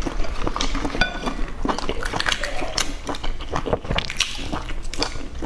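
Wet, close-up chewing of boiled egg mixed with many small sharp crackles of eggshell being cracked and picked off by hand.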